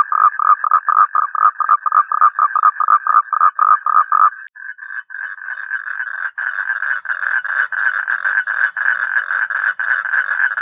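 Toads calling. A rhythmic croak at about five pulses a second stops a little over four seconds in, and after a brief gap a faster, denser trill, a little higher in pitch, takes over.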